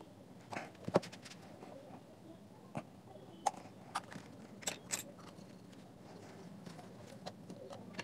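Sharp plastic clicks and snaps as a flat-blade screwdriver pries the speaker baffle out of a JBL GO's plastic housing: about seven clicks spread over the first five seconds.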